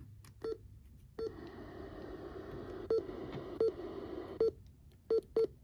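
Seven short, low electronic beeps at irregular intervals over a steady radio hiss, heard on an emergency-alert weather radio broadcast between two warnings.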